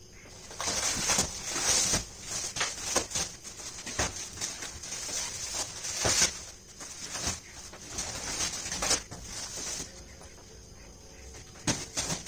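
Clear plastic wrapping on stacked cardboard boxes rustling and crinkling as the boxes are handled and shifted, with scattered light knocks. The rustling dies down about ten seconds in, and a few knocks come near the end.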